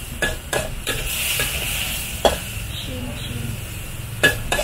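Stir-fry sizzling in a hot wok, with a metal spatula knocking and scraping against the pan several times, most sharply about two seconds in and near the end.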